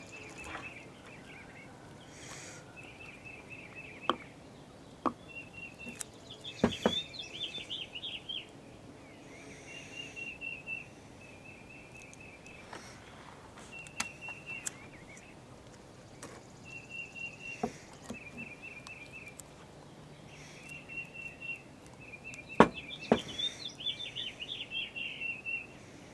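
A small bird sings the same short trilling phrase again and again, every few seconds. A few sharp clicks and knocks sound between the phrases.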